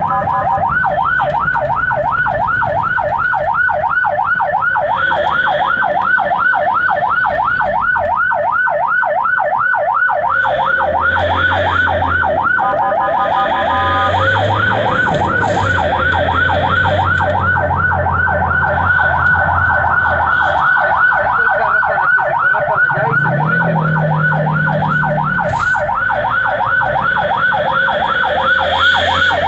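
Ambulance electronic siren in yelp mode, heard from inside the cab: a fast rising-and-falling wail, about four sweeps a second. Near the start and again about 13 seconds in, it briefly switches to a faster, choppier tone pattern.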